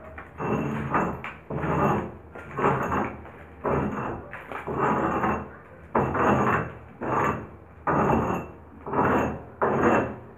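Repeated scraping strokes against a rough, peeling plaster wall as old paint is worked off by hand, about one stroke a second.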